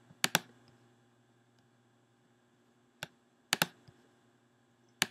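Computer mouse clicks while browsing folders: a few sharp clicks, mostly in quick pairs, with quiet between.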